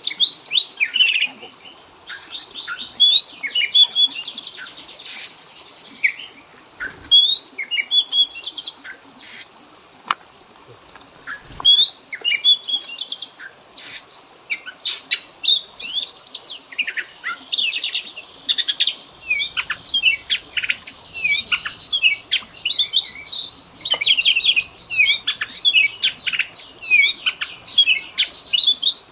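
Oriental magpie-robin (kacer) singing a fast, varied song of rising whistles, chirps and short rattling notes, studded with imitations of other birds, almost without pause apart from a short lull about a third of the way in.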